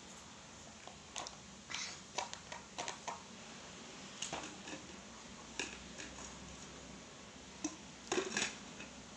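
Light clicks and clatters of small objects being handled and set down, among them a small plastic drink bottle, in scattered groups with the loudest cluster near the end.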